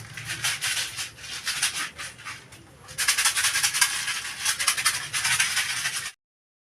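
Rapid scratchy rustling, growing louder about halfway through, that cuts off abruptly near the end.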